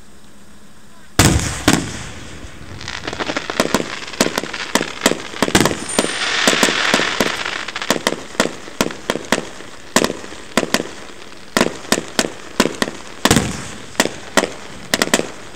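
Aerial fireworks going off: a loud bang about a second in, then many rapid sharp cracks from crackling shells, with a hissing, sputtering shower in the middle and another big bang near the end.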